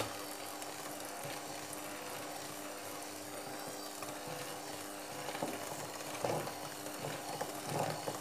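Bosch 300 W electric hand mixer running at a steady pitch, its beaters churning a thick cookie batter in a bowl. From about five seconds in, the beaters knock and scrape louder and more irregularly as they work the dough.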